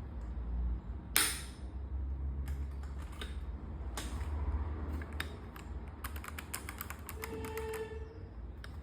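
Keys of an RK H81 mechanical keyboard being pressed: a few separate clacks, the loudest about a second in, then a quick run of keystrokes about six seconds in.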